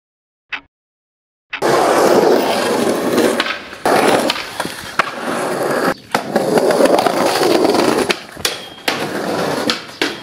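A short electronic blip, then after about a second and a half of silence a skateboard's wheels rolling loudly over rough concrete and stone, broken by several sharp clacks of the board popping and landing.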